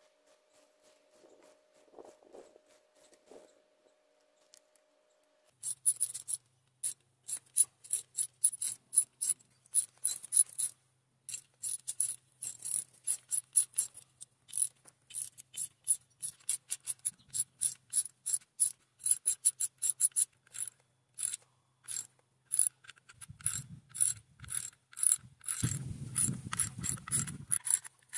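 Ratchet wrench clicking in rapid runs of strokes, a common sound when unbolting an outboard motor, starting about five seconds in after a few faint seconds. Near the end a louder, deeper rasp lasts about two seconds.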